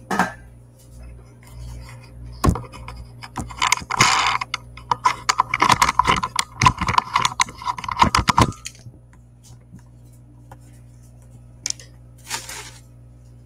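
Handling noise from the recording device as it is picked up and moved: a knock, then a run of clattering, rubbing and scraping against the microphone for about five seconds, which then stops.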